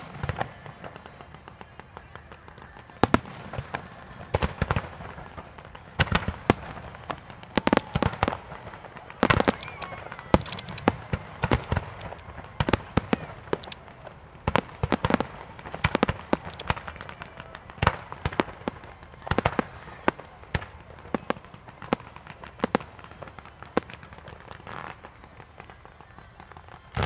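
Aerial firework shells bursting: an irregular run of sharp bangs, often several in quick succession, thickest through the middle.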